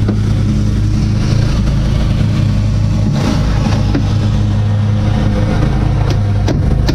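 A steady low engine hum, like an engine idling, with a few light knocks and taps over it.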